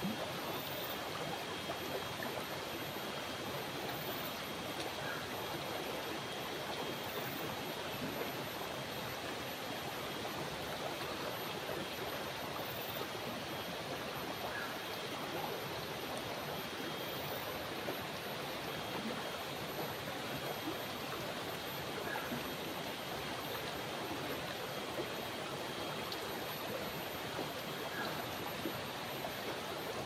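Shallow river flowing swiftly around rocks: a steady, even rush of running water.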